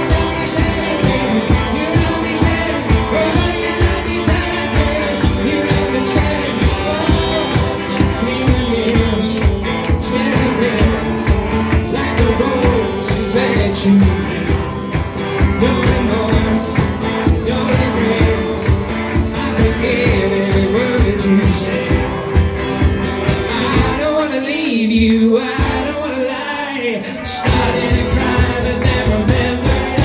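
Live rock/pop band playing a song with singing over a steady beat. The beat and low end drop out for about three seconds near the end, then come back in.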